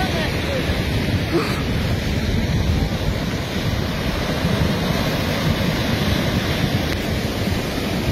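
Flash-flood torrent of muddy water rushing across a valley floor, a steady dense rushing noise. A faint shout comes through early on.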